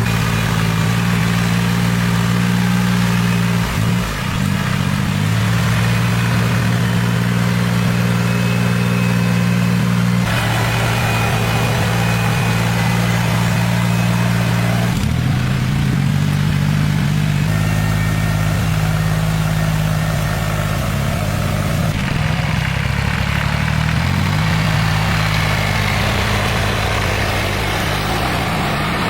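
A vehicle engine running steadily near idle, its pitch and tone shifting abruptly several times.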